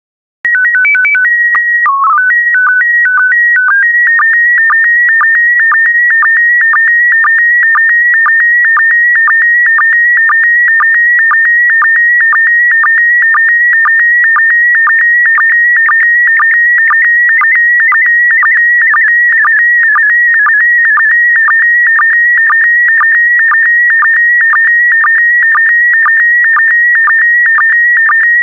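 Slow-scan TV image transmission in PD120 mode, starting about half a second in. It opens with a header of tones hopping between a few pitches, then settles into the scan-line signal: a steady high whistling tone broken by a short lower blip about twice a second as each pair of picture lines is sent.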